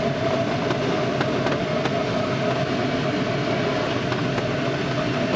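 Steady rush of airflow around a glider's canopy, heard from inside the cockpit in engineless gliding flight, with a steady mid-pitched tone running through it.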